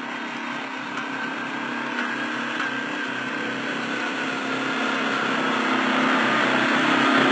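ATV engine pulling up a long, steep, rocky hill climb, running at a steady note that grows gradually louder as the quad approaches.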